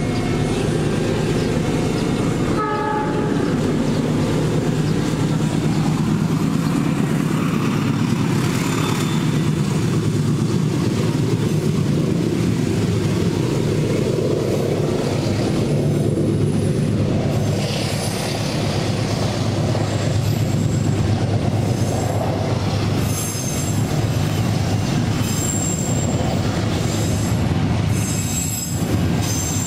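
Freight train of fuel tank wagons rolling past, with a steady heavy rumble and wheel clatter. Thin high wheel squeals come and go in the second half.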